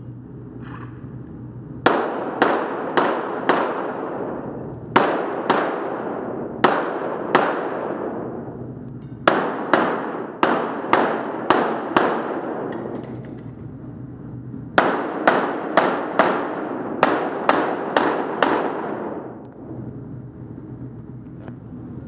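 Glock 34 9mm pistol fired in four quick strings of about four to eight shots each, separated by short pauses, every shot trailing off in long indoor-range reverberation.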